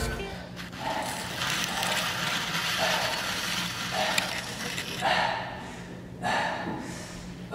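A person breathing heavily, about one breath a second, the breaths growing stronger toward the end, over a steady low electrical hum.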